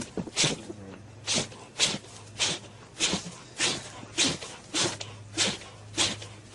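A goat giving a steady run of short, harsh snorting huffs, a little under two a second.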